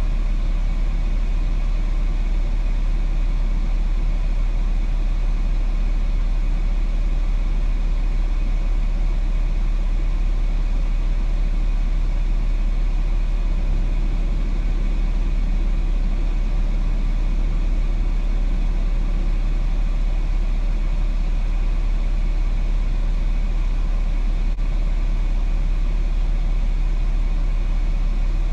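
Semi-truck's diesel engine idling: a steady, unchanging low rumble.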